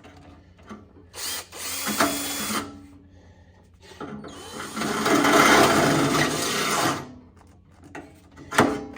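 Cordless drill boring out an existing hole in a belt sander's foot, running in two bursts, a short one and then a longer, louder one of about three seconds that stops as the drill's battery goes dead. A sharp knock follows near the end.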